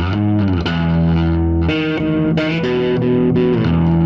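Background rock music with a distorted electric guitar holding sustained chords over a bass line.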